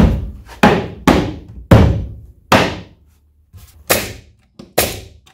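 Pneumatic staple gun driving 2-inch staples into the corners of a pine nuc box: about eight sharp shots, five in quick succession, then a pause of about a second, then three more.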